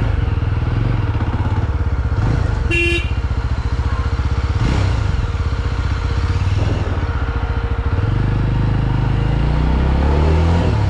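Motorcycle engine idling with a steady, rapid firing beat, then rising in speed toward the end. There is a short high beep about three seconds in.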